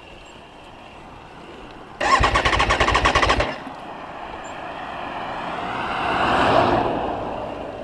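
Motor vehicle engine: a sudden loud burst of rapid pulses about two seconds in, lasting about a second and a half, followed by a sound that swells up and then fades away.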